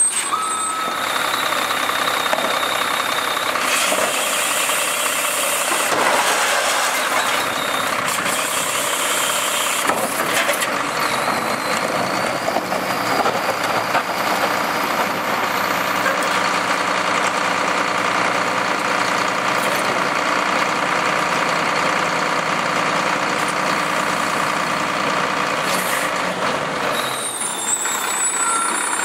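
Engine of a Wittke Express manual side-loading garbage truck running steadily while its hydraulic packer cycles to compact recyclables in the hopper. There are a few clanks in the first ten seconds.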